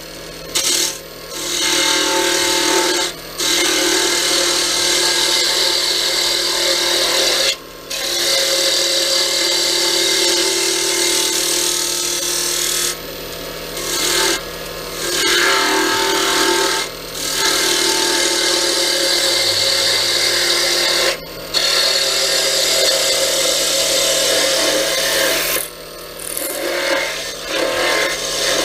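Wood lathe spinning a cherry pen blank while a tool is worked against the wood. A loud, steady noise is broken by short breaks every few seconds as the tool lifts off.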